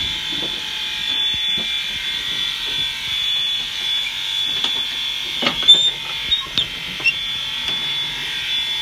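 Steady high hiss and whine of steam in the cab of a coal-fired K-36 steam locomotive. A little past halfway comes a quick run of sharp metallic clanks as the firebox door is worked open onto the fire.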